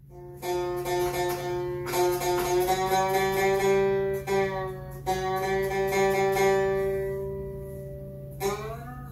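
Guitar strummed slowly, about five chords each left to ring out and fade, the last one near the end bending upward in pitch.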